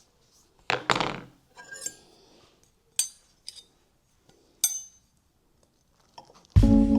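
Cutlery and dishes clinking: a handful of separate sharp clinks and scrapes on a plate, with brief ringing. Background music starts near the end.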